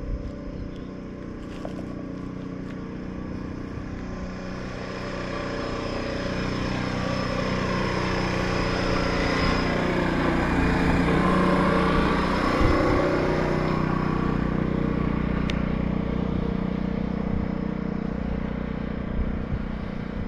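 Small portable petrol generator running steadily, getting louder toward the middle and then easing off a little.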